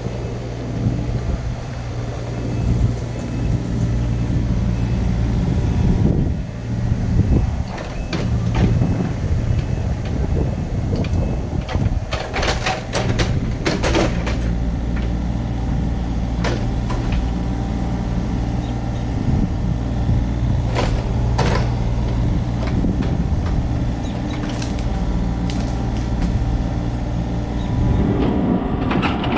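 Kobelco SK35SR mini excavator's diesel engine running steadily under work, with scattered sharp cracks and clanks, several in quick succession a few times.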